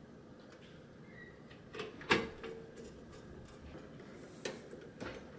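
Small clicks and knocks of wire connectors being pushed onto an espresso machine's control board and a screwdriver being handled, with one sharp click about two seconds in.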